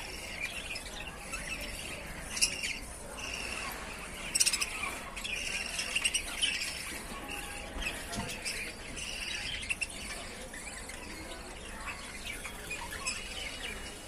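Show budgerigars chattering, a steady stream of short chirps and squawks, with a few sharper, louder calls about two and a half and four and a half seconds in.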